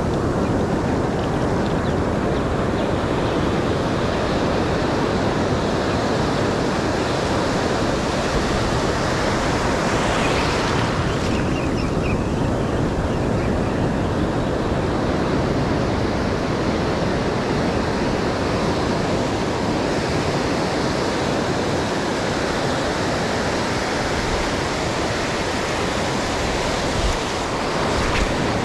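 Ocean surf breaking and washing through the shallows in a steady rush, with a louder surge about ten seconds in. Wind rumbles on the microphone underneath.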